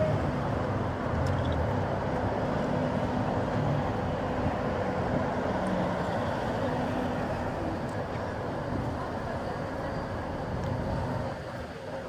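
Street traffic: cars passing and engines running, a steady road noise.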